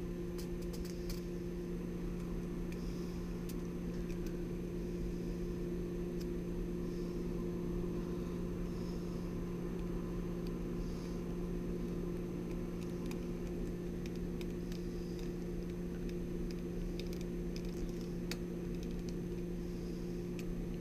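Steady low hum in the workshop with faint scattered clicks and rustles: small handling noises of a wire being pushed into a screw terminal on a controller board and a small screwdriver tightening it.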